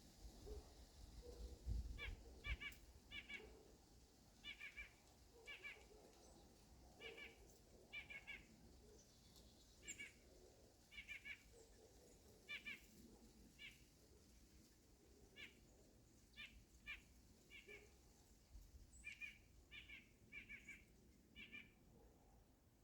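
A bird calling over and over, faintly: short, clipped notes in pairs and threes, about one group a second.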